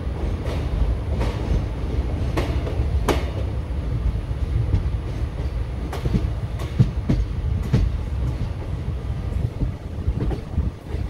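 Passenger train of ICF coaches rolling past at the track side: a steady low rumble, with irregular sharp clicks and knocks as the wheels cross rail joints.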